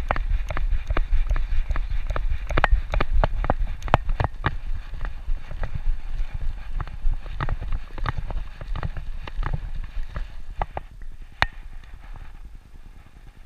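A dog's footsteps on a concrete sidewalk, its claws clicking in a quick, uneven patter, a few clicks a second, over a low rumble, heard from a camera strapped to its back. The clicks thin out and grow quieter near the end.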